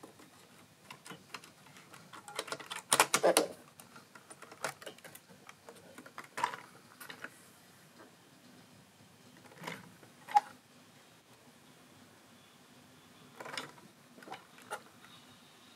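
Handling noise: scattered clicks, taps and short rattles of small objects being picked up and set down, with the busiest burst about three seconds in.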